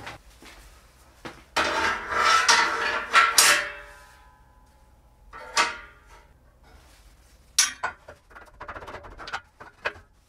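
Metal workpieces and tools being handled on a welding bench: a loud rasping noise of about two seconds, starting about a second and a half in, then scattered clanks and clicks of metal being set down and moved.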